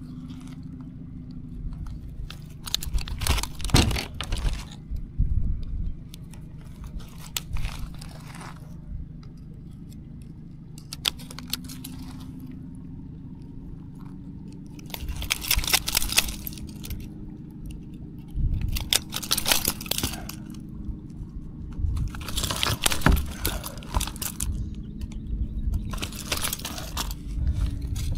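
A barramundi being fought, landed and handled in a small boat: irregular bursts of rattling, scraping and splashing, several seconds apart, over a low steady hum.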